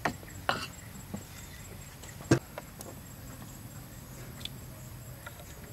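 Scattered light clicks and taps, with one sharper, louder knock a little over two seconds in.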